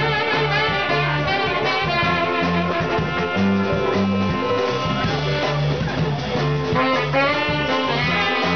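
Live R&B band with trumpet and saxophone playing melody lines together over a repeating bass line.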